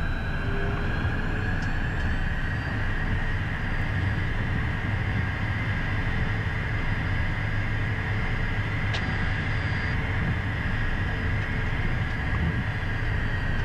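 Twin turbofan engines of a Beechcraft Premier 1A business jet running at low taxi power, heard from inside the cockpit: a steady engine noise with a steady high turbine whine. A single faint click about nine seconds in.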